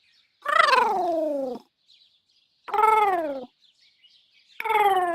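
Three short synthesized cute-robot vocalizations from the 'Deactivate' set, each a buzzy pitched call that rises briefly and then slides down, as a droid powering down.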